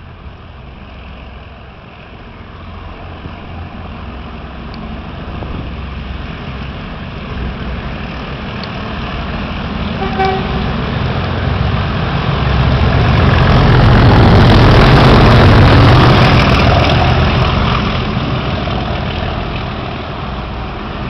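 Two Class 37 diesel locomotives with English Electric V12 engines working hard under power, a heavy diesel thrash. It grows louder as they approach, is loudest as they pass close by about two-thirds of the way through, then fades as they draw away.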